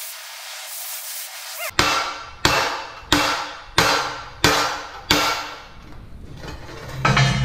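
Cutting torch hissing steadily, then six ringing hammer blows on a steel plate part, about two-thirds of a second apart, knocking cutting slag off the steel.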